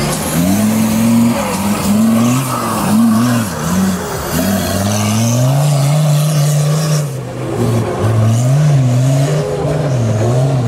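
Nissan Patrol 4x4 off-roader's engine revving hard, its pitch rising and falling again and again as the driver works the throttle, with tyres churning loose dirt.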